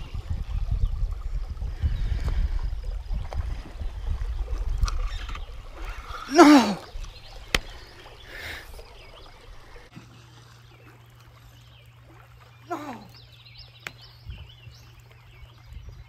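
Uneven low rumble on the microphone for the first several seconds, then a man's loud exclamation falling in pitch, and a second, shorter one a few seconds later; after that only a faint steady low hum.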